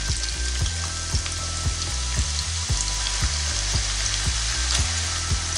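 Thinly sliced onions frying in a generous amount of hot oil: a steady, dense sizzle just after they go in.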